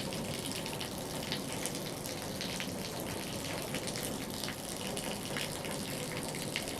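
Water running and spattering in a steady rush, with faint scattered ticks, from a leak in the roof.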